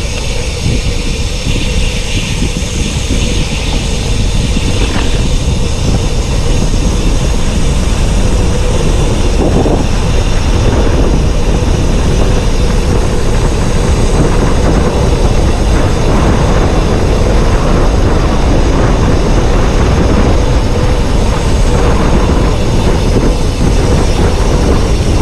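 Loud, steady wind rush buffeting the microphone of a road cyclist riding at speed down a concrete mountain road, slightly louder toward the end.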